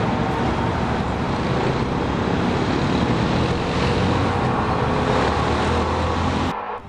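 Steady, loud low hum over a wash of rumbling noise: faked 'strange sky sound' hoax audio. It cuts off abruptly near the end.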